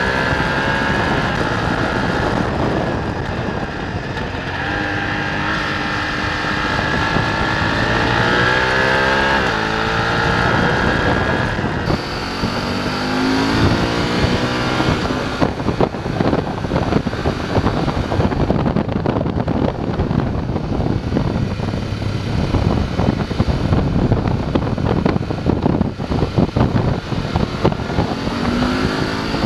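BMW F850 GS parallel-twin engine pulling hard, its pitch rising and dropping back at each upshift several times in the first half. It then runs choppy and uneven with wind noise for a stretch before pulling up again near the end.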